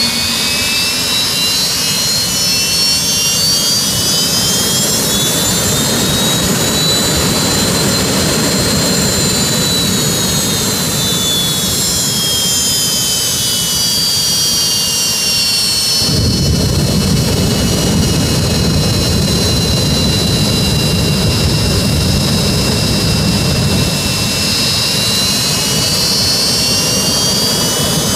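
Jet car's turbine engine running at the track, a loud whine of several high tones slowly rising and falling in pitch over the rush of its exhaust. About halfway through, the low rumble of the exhaust suddenly grows louder as the engine is throttled up.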